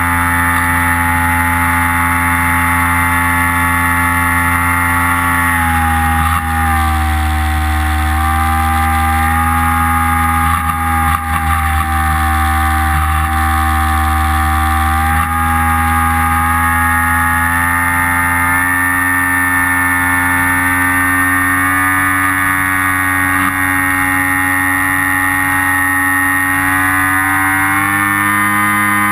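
Motor and propeller of an FPV model aircraft running steadily with a loud whine. Its pitch drops about six seconds in as the throttle eases, holds lower for several seconds, then climbs back up and rises again near the end.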